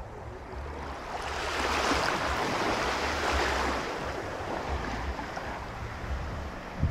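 Small waves washing onto a sandy beach, swelling about a second in and easing off after about four seconds, with wind rumbling on the microphone.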